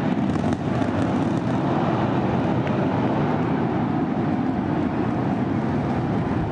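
SpaceX Starship's Super Heavy booster and its Raptor rocket engines at liftoff: a loud, steady, low rumble with a few faint crackles.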